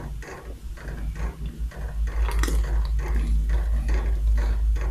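Wooden spatula stirring hot milk in a steel pot, scraping the pan in quick strokes about three times a second, as custard mix is stirred in continuously to keep lumps from forming.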